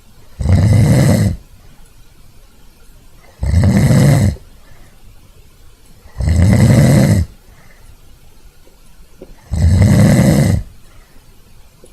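A man snoring loudly: four long snores, each about a second long and spaced about three seconds apart.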